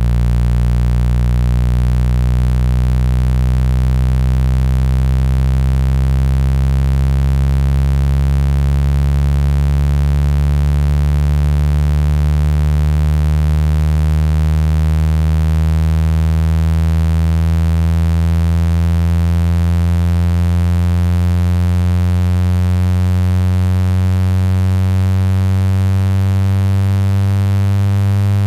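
Low electronic speaker-cleaning tone, played to shake water and dust out of a phone speaker grille: a loud, steady, buzzy hum with many overtones that glides slowly upward in pitch.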